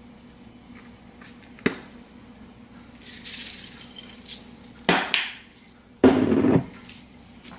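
Spice shakers handled at a kitchen counter over a faint steady hum: a sharp click, then a short rattling hiss of seasoning shaken out of a shaker, then two sharp knocks and a louder half-second clatter, the loudest sound, near the end.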